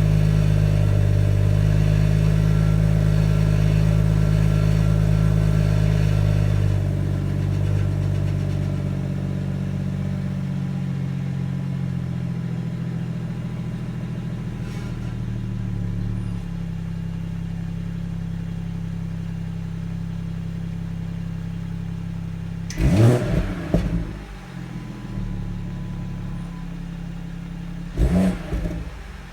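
BMW M140i's 3.0-litre turbocharged straight-six idling on its standard exhaust after a cold start. The fast idle settles lower about a quarter of the way in and again near the middle. Near the end the engine is briefly revved twice.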